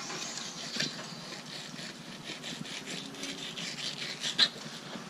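Fillet knife scraping and sawing along a plastic cutting board as it slices a whiting fillet off its skin, with a couple of sharp clicks of the blade on the board.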